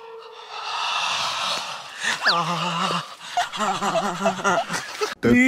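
A group of young men's voices: a breathy, hushed sound, then a drawn-out greeting shouted together with a swooping pitch, and excited shouting and laughing. A loud music jingle starts just before the end.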